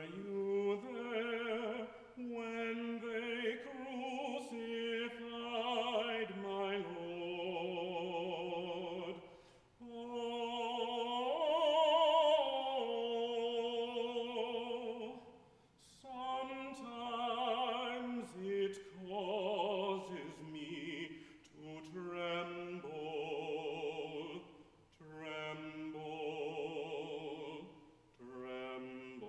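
A man's solo voice singing a slow song with vibrato, phrase by phrase with short breaks for breath, and no other voice or instrument audible. The longest, loudest phrase comes near the middle.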